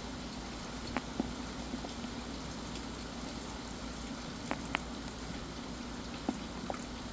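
Steady rain, an even hiss with a few separate drops ticking sharply on a surface now and then.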